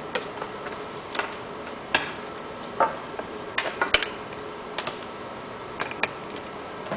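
Irregular light clicks and clatter of test leads being connected: cable connectors pushed onto the oscilloscope's input sockets and clip leads handled at the circuit box, with a quick cluster of clicks about halfway through, over a steady background hiss.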